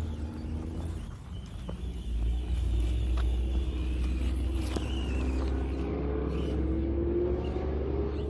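Axial SCX24 Deadbolt micro RC crawler's small electric motor and drivetrain whining as it crawls, the whine rising in pitch through the second half. Under it is a steady low rumble, with a few clicks and knocks.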